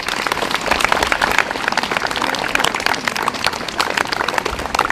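A crowd of school pupils applauding, many hands clapping at once in a loud, dense patter.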